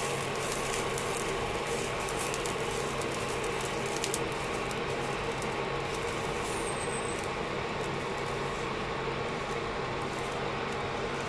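A tissue rubbing around the inside of a hot, oiled frying pan as it is wiped, over a steady hum.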